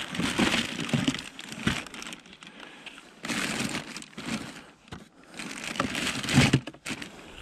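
Newspaper-print wrapping crinkling and rustling in three bursts as hands pull a small winter fishing rod out of it and fold it aside.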